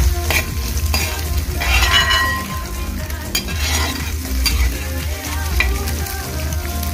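Boiled chicken and scrambled egg sizzling in a metal pan while a spatula stirs them, scraping across the pan's bottom again and again, with two longer scrapes at about two and three and a half seconds.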